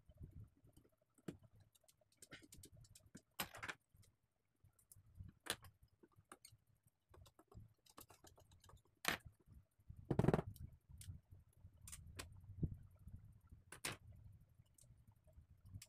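Scattered light clicks and taps of small tools and parts on a smartphone during disassembly, with the loudest knock about ten seconds in.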